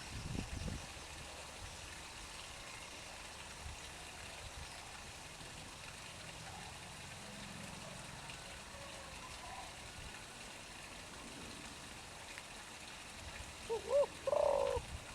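Steady rush of pump-fed water flowing into a garden pond, with a brief low thump at the start and a short pitched animal call near the end, the loudest sound in the stretch.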